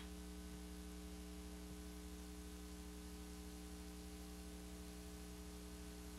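Faint steady electrical mains hum with light tape hiss, the noise floor of a VHS tape transfer.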